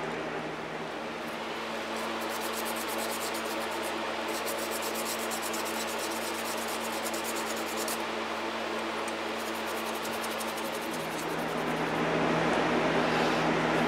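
Steady background hum and hiss of a running fan, with rubbing and handling noises as hands work over the alternator's stator windings.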